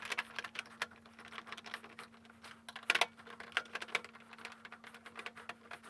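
Phillips screwdriver driving screws into a tumble dryer's plastic water container housing: a run of light, irregular clicks and ticks from the bit and the turning screws, with a sharper click about three seconds in.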